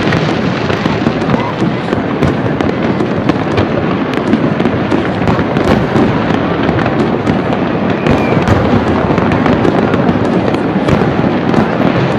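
Fireworks display going off in quick succession: a loud, continuous crackle with many sharp bangs.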